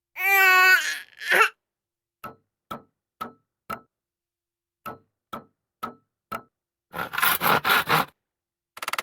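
A string of short comedic sound effects: a wavering, warbling tone at the start, then two runs of four short knocks about two a second, then a quick rattling burst near the end.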